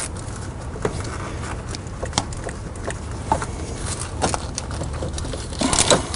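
Scattered light clicks and knocks of hand tools and metal hose fittings being worked on an automotive AC compressor as its hose assembly is unbolted, with a quick cluster of clicks near the end. A steady low hum runs underneath.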